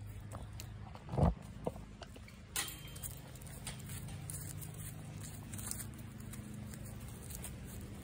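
Footsteps and phone handling noise while walking over gravel and weeds, with one loud bump about a second in and scattered small clicks, over a steady low hum.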